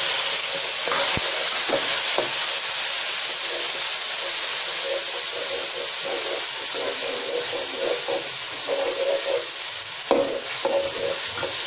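Tomatoes frying in hot oil with browned onions in an aluminium pot, a steady sizzle as a metal slotted spatula stirs them, knocking against the pot a few times in the first couple of seconds.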